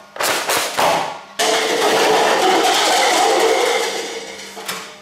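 Two sharp pops from the Nerf Rival Hades blaster firing foam balls. Then a sudden long clatter as a stacked pyramid of red targets is knocked down and tumbles and rolls across the floor, fading out after about three seconds.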